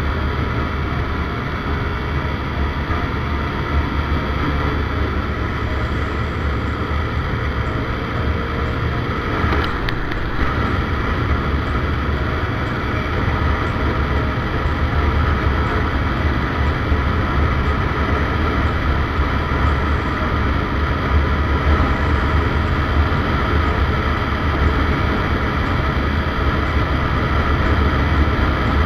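A Yamaha Sight 115 Fi underbone motorcycle being ridden: its small single-cylinder engine runs steadily under the rush of wind on the microphone.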